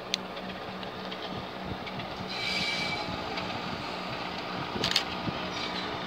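Diesel locomotives running at low speed, a steady engine hum, as a train of coaches moves slowly past. A brief high wheel squeal comes about two and a half seconds in, and sharp clicks sound at the start and about five seconds in.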